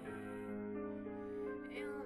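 A slow electronic song playing, with held chords.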